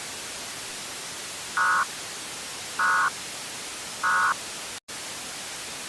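Three short EAS end-of-message data bursts (the SAME 'NNNN' code): brief warbling digital tones, evenly spaced about a second apart, marking the close of the emergency alert, over a steady static hiss.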